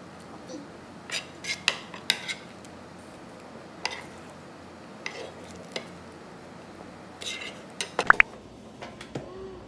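Metal spoons scraping and clinking on a paper-lined plate as leftover bibimbap rice is scooped up, in scattered clicks and scrapes. About eight seconds in, a louder metallic clunk and rattle with a short ring as an air fryer basket is pulled out.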